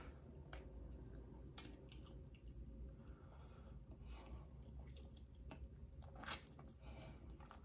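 Wet eating sounds of a sauced chicken wing dipped in blue cheese dressing and eaten: faint sticky clicks and mouth smacks, a sharp click about a second and a half in, and a louder wet smack about six seconds in as the wing goes to the mouth.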